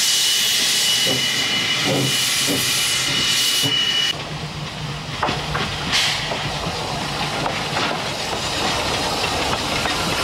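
Two-foot gauge steam locomotive venting steam with a loud hiss and a thin steady high tone, a few low beats underneath. About four seconds in, the hiss cuts off abruptly and gives way to a steady rumble of the train running, with a few sharp clanks.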